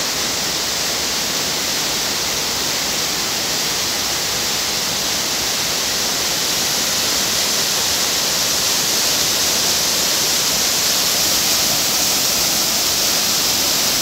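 A forest waterfall with three drops, pouring over rock into a plunge pool: a steady rushing hiss of falling water that gets a little louder about halfway through.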